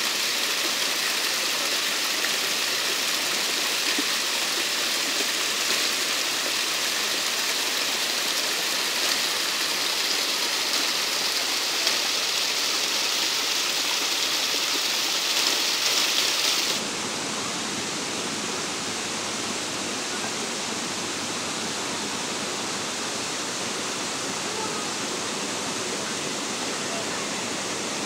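Small waterfall pouring onto rocks and splashing into a pool, a steady rushing hiss. About two-thirds of the way through it cuts abruptly to a softer, lower rush of shallow water running over rock.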